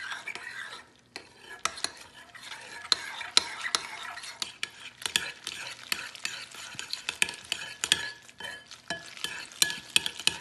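Metal spoon stirring macaroni and cheese in a ceramic bowl: a continuous squish of the coated noodles with frequent sharp clinks of the spoon against the side of the bowl, pausing briefly about a second in.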